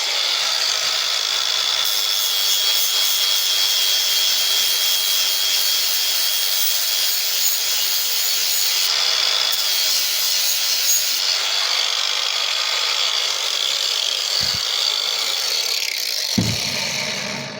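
Power grinder with a 120-grit flap disc sanding steel lineman's pliers, running steadily and then stopping abruptly just before the end. Two brief low knocks come in its last few seconds.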